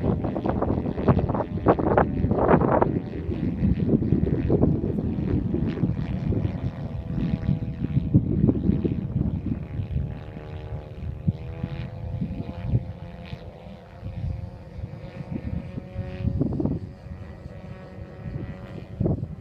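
Engine and propeller drone of a 33% scale Hangar 9 Piper Pawnee RC model (JCV 120 engine, 27x10 propeller) flying overhead; the engine's pitch dips in the middle as it passes and the sound fades toward the end. Irregular gusty rumble over the first few seconds.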